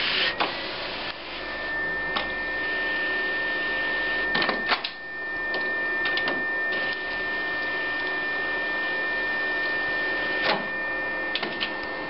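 HP DesignJet 450C plotter loading a sheet of paper: its feed mechanism runs with a steady high whine as the paper is drawn round the platen roller, broken by several clicks and clunks from the mechanism.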